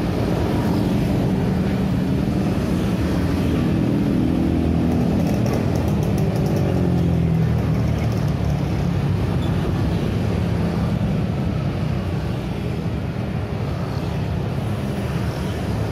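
Street traffic passing close by: motorcycles, scooters and cars driving past with a steady mix of engine and tyre noise. In the first half one engine note drops in pitch as a vehicle goes by.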